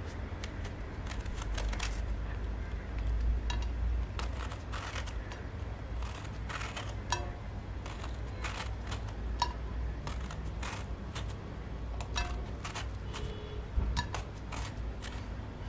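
Metal swivel peeler scraping the skin off a pointed gourd (parwal) in short, repeated strokes, irregularly spaced, over a low steady hum.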